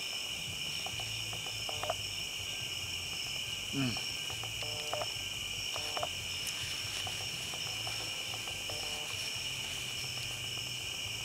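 Steady chorus of night insects, crickets, a continuous high-pitched trill, with faint short sounds now and then underneath.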